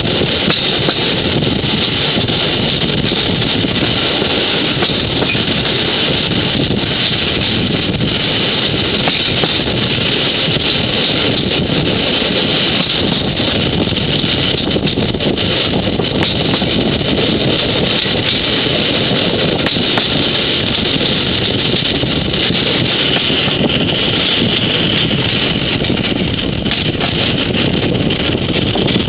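Steady running noise of a moving vehicle, with wind on the microphone.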